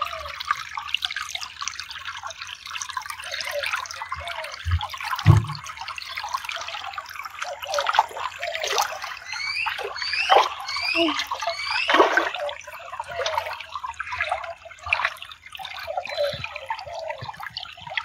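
Shallow spring water gurgling and trickling over rocks and pebbles. About halfway through a run of short rising chirps sounds, and two low thumps come about five seconds in.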